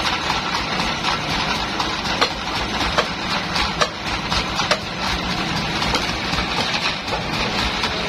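Band sawmill running steadily at idle, with several sharp knocks in the middle stretch as a log is rolled into place on the carriage.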